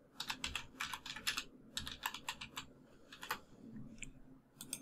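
Faint computer keyboard typing: a quick, irregular run of key clicks that thins out after about two and a half seconds, with a few last keystrokes near the end.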